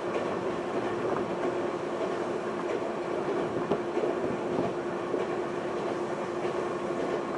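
Running noise heard from inside a Semboku Rapid Railway 5000 series electric commuter car moving at steady speed: wheels rumbling on the rails under a constant hum, with a few light clicks.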